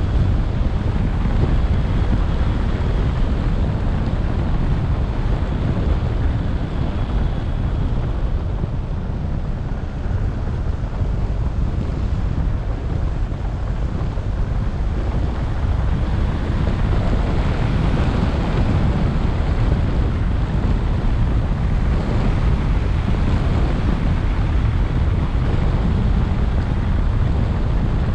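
Wind rushing over a roof-mounted action camera's microphone on a moving car, with a steady low rumble of the car and its tyres on the road beneath.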